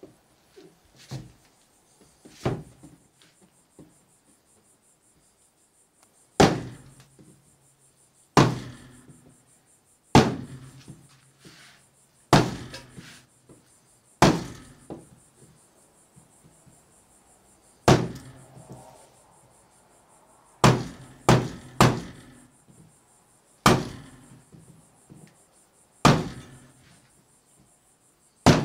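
Hammer blows nailing down a wooden floor panel: about a dozen single sharp strikes a second or two apart, with a quicker run of three about two-thirds of the way through.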